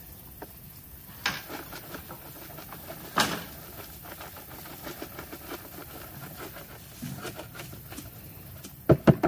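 Outdoor yard-work sounds as a plastic nursery pot is tipped out over a garden bed: scattered rustles and clicks, with three loud knocks in quick succession near the end.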